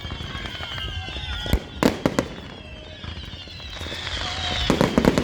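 Aerial fireworks bursting: a few sharp bangs about a second and a half in and another cluster near the end, with faint falling whistles in between.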